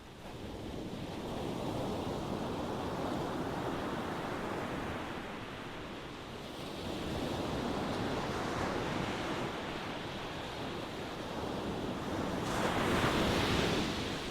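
Ocean waves breaking and washing on the shore, the surf rising and falling in slow surges. A louder, brighter wave breaks near the end.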